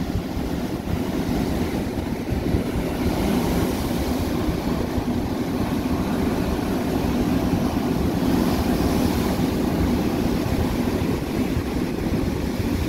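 Rough, cyclone-driven sea: heavy surf breaking in a steady rush, with a low rumble of wind on the microphone.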